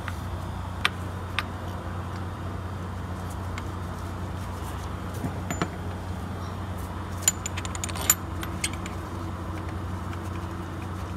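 Scattered sharp metallic clinks of sockets and bolts being handled while the engine mount bracket bolts are started, over a steady low hum.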